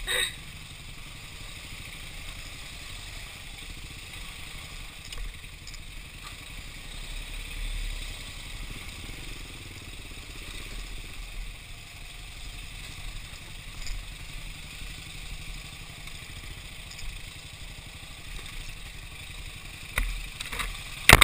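Motorcycle engine running steadily at low trail speed, with rattles and knocks from the bike jolting over rocks, and a couple of louder knocks near the end.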